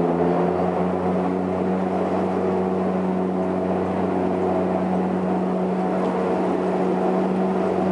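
Twin turboprop engines and propellers of a Saab 340B heard from inside the cabin: a steady low drone with higher steady tones above it, with the aircraft on the runway before its takeoff roll.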